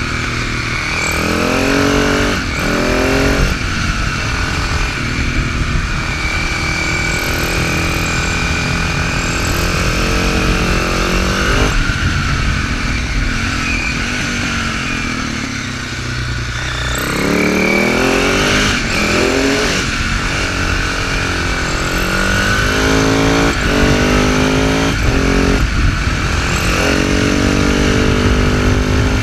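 Husaberg FS650 supermoto's single-cylinder four-stroke engine under way, its note climbing repeatedly as it is revved through the gears and dropping back between pulls, with a short off-throttle dip about halfway through. A steady wind and road rush runs under it.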